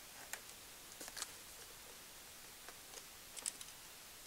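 A handful of faint, scattered taps and clicks as a flat cardboard box is set down on a screen-printing screen lying on glass and pressed flat by hand.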